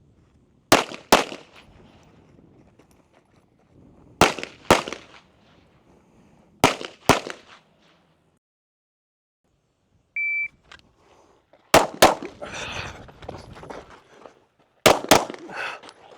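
Handgun shots fired in quick pairs, double taps about half a second apart: three pairs a few seconds apart, then a short electronic shot-timer beep about ten seconds in, followed by more shots, including another pair near the end.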